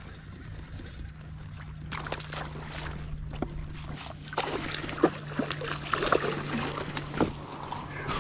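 Handling noises aboard a fishing kayak: a run of small clicks, knocks and rustles, busier in the second half, with light water splashing and a steady low hum underneath.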